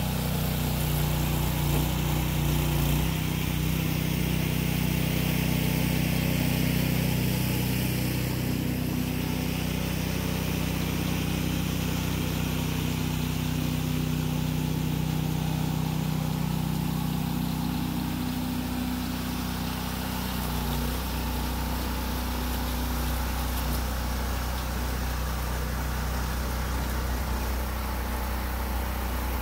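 Gasoline engine of a walk-behind rear-tine garden tiller running steadily while tilling sand into clay soil, its note shifting about 3 seconds in and again about 20 seconds in.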